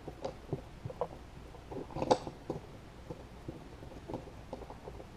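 Light clicks and taps of the slide, barrel and recoil spring of a KJW M9 airsoft pistol being fitted together by hand, irregular and fiddly.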